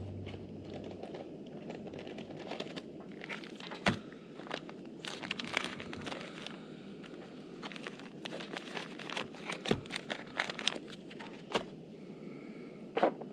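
Irregular clicks, light knocks and crinkling of small objects being handled, with a few sharper knocks about four seconds in, near ten seconds and just before the end.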